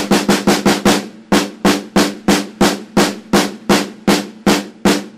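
Snare drum struck with a pair of wooden drumsticks held in French grip: a quick run of about eight strokes in the first second, then a short gap and even single strokes, about three a second.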